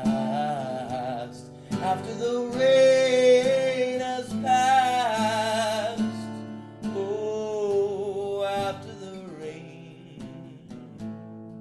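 Acoustic guitar strumming under long, wavering held sung notes with no clear words. The voice stops about nine seconds in, leaving the guitar.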